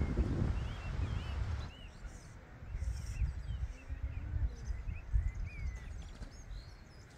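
Small songbirds chirping over and over in short rising and falling calls, with wind buffeting the microphone as a low rumble that is strongest for the first second and a half, then eases.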